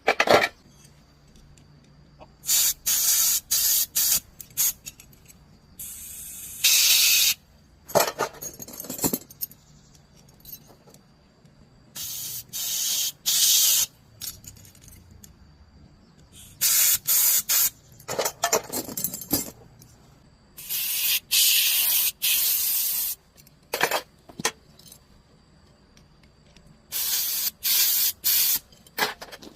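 Spraying hiss in repeated bursts, some short and some one to two seconds long, with quiet gaps between them and a couple of fuller rustling noises among them.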